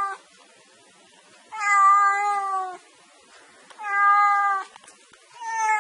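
Domestic cat meowing repeatedly: the tail of one meow at the start, then three more about two seconds apart, the last one still going at the end. Each meow lasts about a second, holding a fairly steady pitch that dips slightly at its close.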